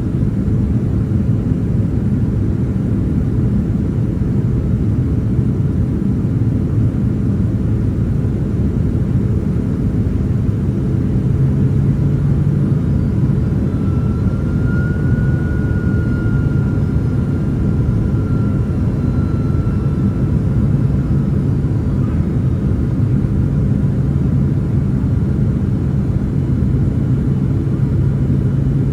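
Steady cabin noise of a Boeing 767-300ER airliner in flight: a constant low roar of engines and airflow. A faint thin tone drifts in and out midway.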